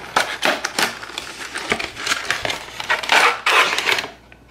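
A cardboard box being opened and a clear plastic packaging tray pulled out and handled: irregular crackling, rustling and clicking of plastic and cardboard, dying down near the end.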